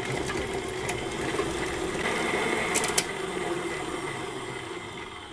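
Electric stand mixer running steadily, its beater mixing eggs, milk and vanilla into creamed butter and sugar, with a couple of sharp clicks about three seconds in; the hum grows quieter near the end.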